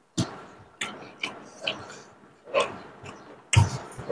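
Close-miked eating sounds: irregular sharp smacks and clicks, about seven in four seconds with the loudest near the end, from mouths chewing and fingers working biryani rice on plates.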